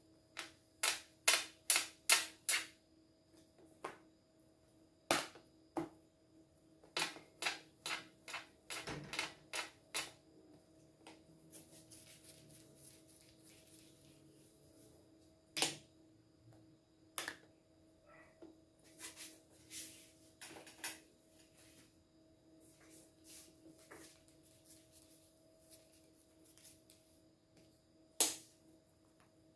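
Sharp clacks of a plastic bench scraper chopping down through dough onto a table, in quick runs of several strikes a second with pauses between, over a faint steady hum.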